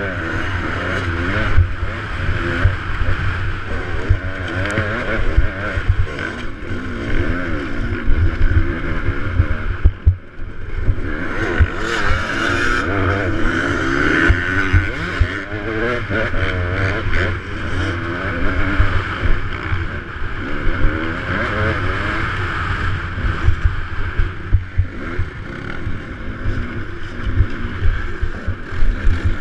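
KTM 200 XC-W's two-stroke dirt-bike engine, heard from the rider's own helmet camera, revving up and down constantly as the throttle is worked over rough trail, with knocks from the bike over the ground. The throttle shuts off briefly about ten seconds in, then picks up again.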